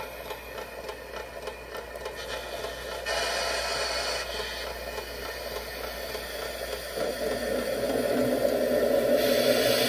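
Gauge 1 live-steam model of a DB class 01.10 locomotive running on a roller stand: a steady hiss with rattling from the turning wheels and rods, getting louder in the second half.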